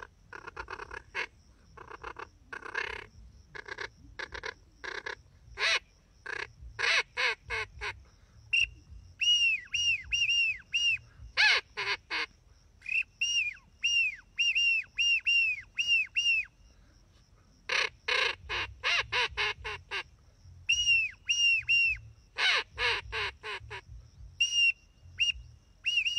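Reyoka duck calls blown by mouth. First come quick runs of short, harsh quack-like notes. Then come runs of short whistled notes that each fall in pitch, a few a second, imitating the whistle of the drake Eurasian wigeon, with more harsh runs between them.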